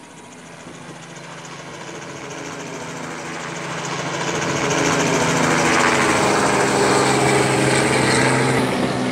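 Robinson R44 helicopter's six-cylinder piston engine and rotor running at take-off power, growing steadily louder over the first five seconds as it climbs out and passes low overhead, then staying loud.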